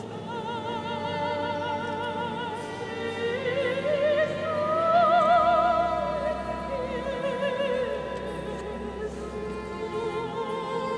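Men's choir singing sustained chords with vibrato in a cathedral, swelling to its loudest about five seconds in, then easing back.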